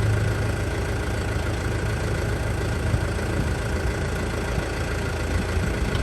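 Tractor engine running steadily at idle, with a strong low hum that drops away just after the start.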